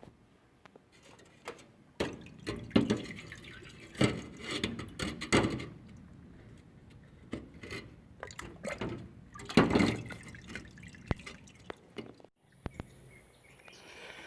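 Carburettor cleaner liquid splashing and dripping in irregular bursts as a throttle body is cleaned of carbon build-up.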